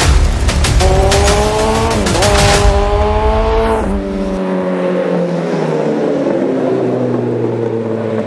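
A vehicle engine revs up, dips briefly, revs again, then drops in pitch as it passes and slowly falls away. A heavy low rumble and rapid crackle run under the first half and stop about four seconds in.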